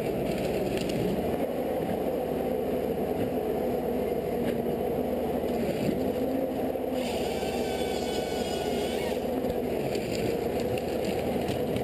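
Heavy machinery running steadily, an engine drone with a constant hum, with a higher wavering whine added for about two seconds past the middle.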